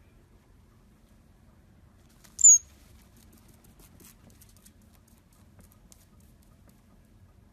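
A single short, very high-pitched squeak about two and a half seconds in, dipping slightly in pitch, followed by a few faint light clicks.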